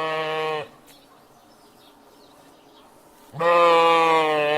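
Sheep bleating: a long, steady-pitched bleat ends about half a second in, and after a quiet gap a second bleat starts a little past three seconds in and lasts over a second.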